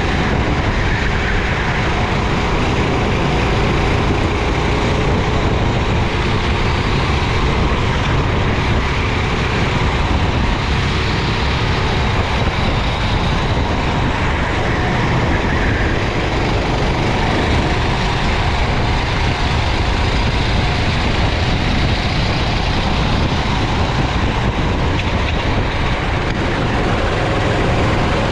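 Racing kart engine running hard, its pitch rising and falling as the kart accelerates and brakes, buried in a loud steady rushing noise.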